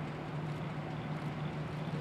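Y class diesel-electric shunting locomotive's EMD six-cylinder two-stroke diesel engine running steadily at low power as the locomotive creeps along, a steady low drone.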